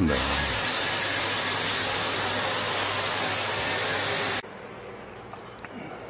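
High-pressure water spray hissing steadily as it washes the coil of a wall-mounted LG split air conditioner's indoor unit. The spray stops abruptly about four seconds in.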